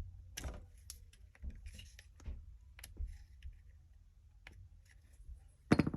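Scattered light clicks and taps of small pistol parts being handled during reassembly of a Glock 43, with a louder clack near the end.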